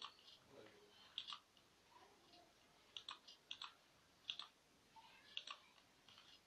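Faint computer mouse button clicks, single and in quick pairs, scattered over several seconds.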